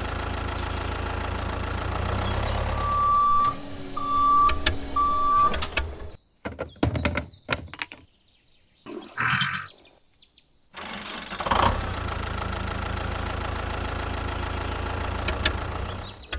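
Mini tractor engine running steadily, with three short, evenly spaced beeps a few seconds in. About halfway the running stops, leaving scattered clicks and brief silences, then it runs steadily again.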